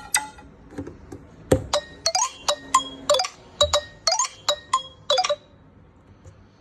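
Nokia 301 ringtone playing: short, bright, glassy clinking notes in a quick pattern, some sliding quickly upward in pitch. It stops about five seconds in.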